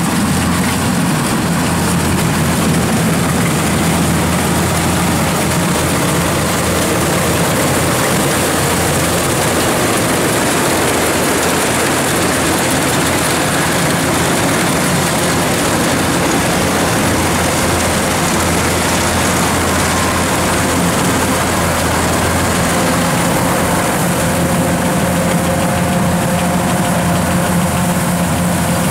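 Kubota rice combine harvester running steadily under load while cutting and threshing rice, its diesel engine and threshing machinery giving a constant loud hum. The engine note shifts slightly near the end.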